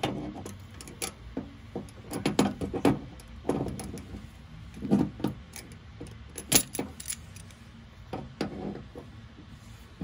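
Metal hand tools clinking and rattling against a brass flare nut and service valve as the flare connection is tightened: locking pliers and a wrench, in irregular clusters of sharp clicks a second or two apart.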